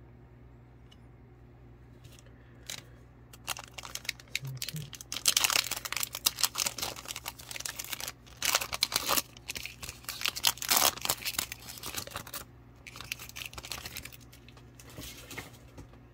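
Foil wrapper of a 2022 Donruss Optic Football retail trading-card pack being torn open and crinkled by hand. It starts a few seconds in as a run of crinkling rustles, loudest in the middle, and stops shortly before the end.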